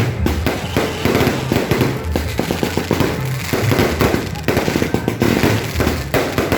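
Fireworks and firecrackers going off in a dense, rapid string of sharp pops and crackles.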